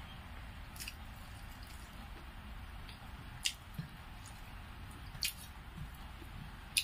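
Close-up eating sounds of rice being eaten by hand: four short, wet clicks and smacks of the mouth and fingers, the loudest near the end, over a steady low hiss.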